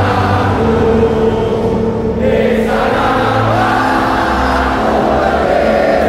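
A packed football stadium crowd of Indonesia supporters singing together in unison, a slow melody of long held notes.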